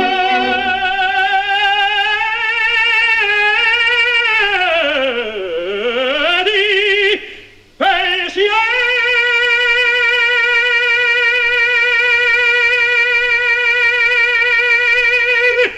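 Operatic tenor singing the closing cadenza of an aria with strong vibrato: the line slides down low and climbs back up, breaks off briefly about seven seconds in, then a long high note is held to the end.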